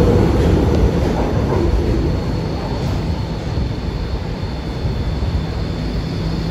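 MTR M-Train electric multiple unit running through the station without stopping. Its low rumble is loudest at the start and fades over the first two seconds as the train clears the platform, leaving a steadier, quieter background hum.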